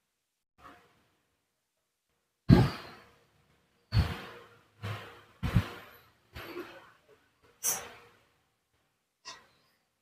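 An irregular series of short, sharp thumps and knocks, about eight in ten seconds, each dying away quickly; the loudest comes about two and a half seconds in.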